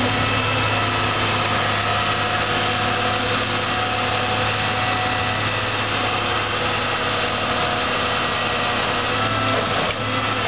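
Diesel engine of a Caterpillar wheeled material handler running steadily under load as its hydraulic boom and grapple swing a scrapped pickup truck, with a steady hum and several high, even tones over it.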